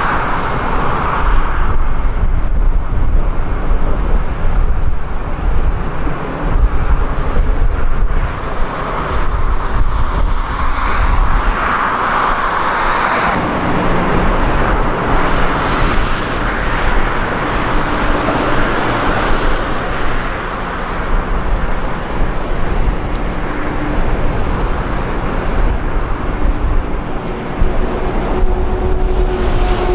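Car on the move: steady, loud road and engine noise. Near the end a faint steady hum sinks slightly in pitch.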